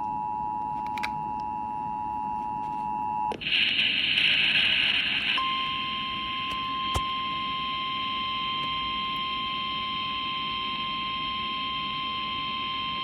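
Emergency Alert System tones received over FM radio. The two-tone attention signal sounds, then about three seconds in it gives way to a two-second burst of harsh digital data noise, followed by a single steady, slightly higher tone: the NOAA Weather Radio warning alarm tone that comes before the weather service's voice message.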